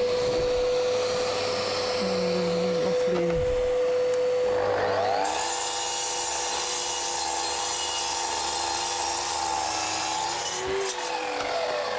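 Dust extractor running with a steady whine. About five seconds in, a mitre saw's motor spins up, runs for several seconds while cutting a pine beam, and winds down near the end.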